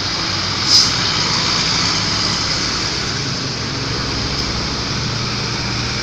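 Road traffic noise with a low, steady engine hum, and one short, sharp burst of noise a little under a second in.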